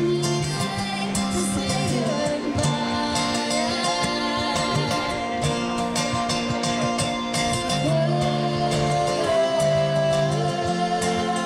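Live duo of two strummed acoustic guitars with singing, a steady strumming rhythm under a sung melody.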